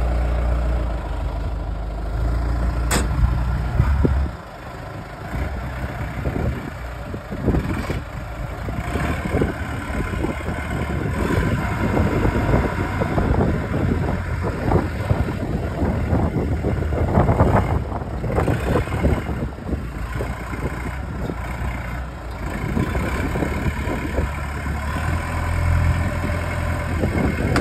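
Telehandler diesel engine running, its speed rising and falling as the hydraulic boom is raised and telescoped out; a sharp click about three seconds in.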